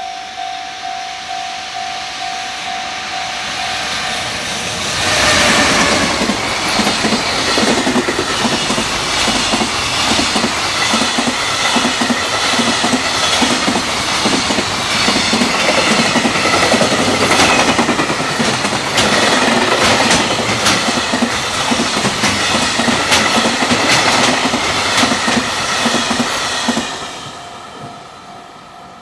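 Japanese level-crossing warning bell ringing at a steady beat. About five seconds in, an electric freight train rushes through at high speed: a sudden loud arrival, then some twenty seconds of rapid wheel clatter over the rail joints as the wagons pass. The clatter fades near the end, leaving the crossing bell.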